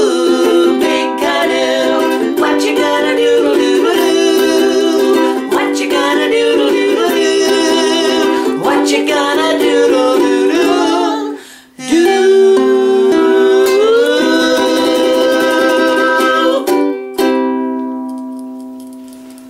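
Singing to a strummed ukulele. Near the end the voice holds one long note, then a final ukulele chord rings out and fades away.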